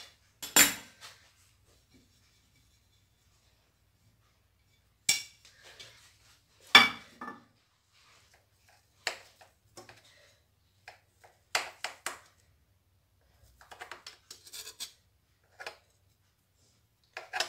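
A utensil cutting a slice from a baked dish in a nonstick frying pan, knocking and scraping against the pan: a handful of sharp clinks a few seconds apart, the loudest about seven seconds in, with light scraping near the end.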